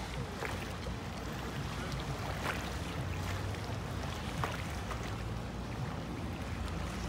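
Outboard engine of a center-console boat running steadily as it cruises past, a low drone over a haze of water noise, with a few faint ticks.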